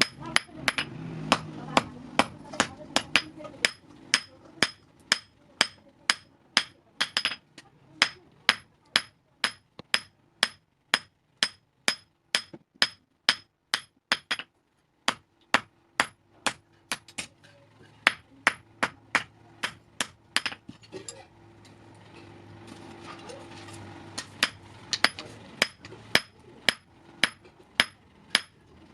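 Blacksmith's hammer forging steel on an anvil: a steady run of blows, about two a second, each with a bright metallic ring. The blows stop briefly about halfway through and come more sparsely for a few seconds later on.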